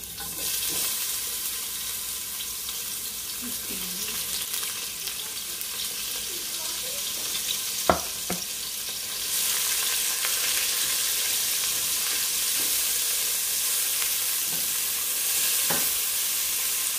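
Onions sizzling as they fry in a little hot oil in a pan, the sizzle starting as they go in and growing a bit louder about nine seconds in. A sharp knock sounds about eight seconds in, and a lighter one near the end.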